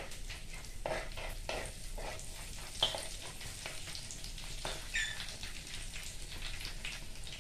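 Whole spices and chillies sizzling and crackling in hot mustard oil in a clay pot, the tadka stage when the spices are fried until they crackle. Steady frying with frequent small pops, and two sharper crackles about three and five seconds in.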